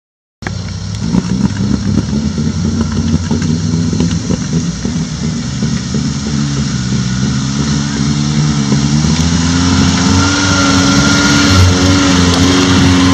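Suzuki SJ410's four-cylinder engine running under load as the 4x4 crawls over rough dirt, its pitch and loudness rising gradually in the second half.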